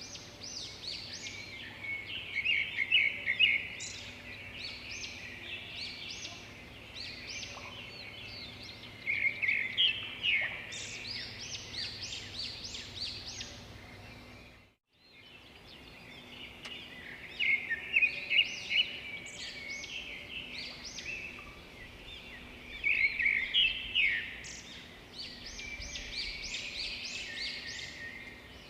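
Small birds chirping and twittering in repeated bursts of quick high notes over a steady outdoor background. The sound cuts out for a moment about halfway through.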